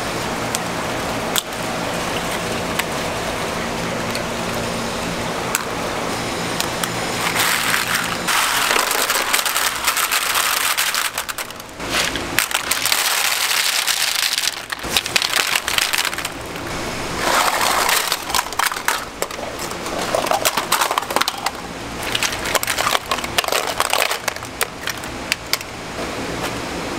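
Live shellfish shells (scallops, clams, mussels) clattering and clicking against each other as they are scooped and tumbled in plastic baskets. The sound comes in repeated bursts of rattling clicks starting about seven seconds in, over a steady background hum and hiss.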